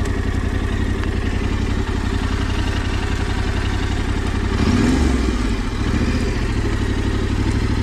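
Yamaha Ténéré 700's parallel-twin engine running at low revs, with a short burst of throttle about halfway through.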